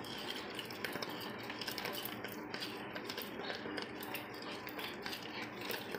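Metal spoon stirring a thickening slime mixture of glue, detergent and scouring powder in a plastic tub: irregular light scraping and clicking of the spoon against the tub.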